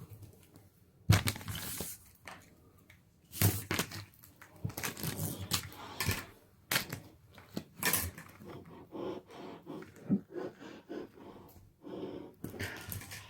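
Irregular handling noises: crinkling and crackling, as of packaging or plastic being handled, with a few sharp knocks, the loudest about a second in.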